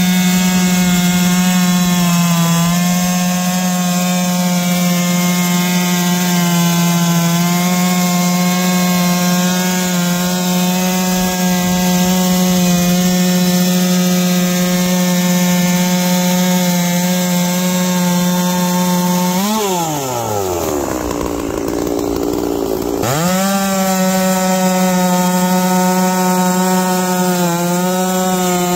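Holzfforma G660 two-stroke chainsaw, a Stihl MS660 clone, running at full throttle as its chain rips through Eastern red cedar on a chainsaw mill. About two-thirds through, the engine drops to low revs for about three seconds, then revs back up to full speed.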